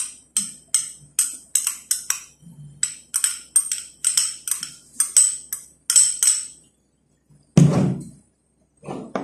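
Metal spoon clinking against a cut-glass bowl, quick taps about three a second for some six seconds, as salad is scraped out of the bowl. Then a single louder, dull thump near the end.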